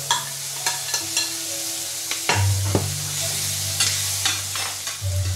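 Fish and ginger strips sizzling in a hot stainless steel frying pan as they are stirred, the utensil clicking against the pan several times.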